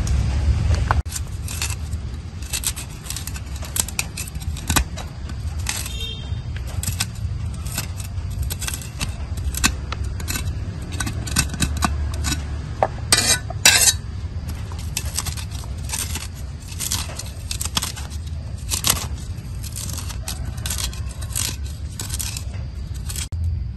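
Irregular clicks, taps and scrapes of a steel knife and cleaver working over a stone mortar as shallots are peeled and chopped shallots are scraped off the blade into the bowl, with a louder burst of knocks about halfway through.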